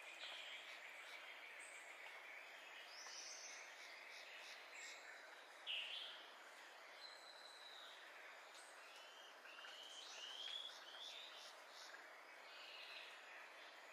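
Faint outdoor ambience: a steady hiss of background noise with birds chirping now and then, a brief louder call about six seconds in and a run of four quick rising chirps a few seconds later.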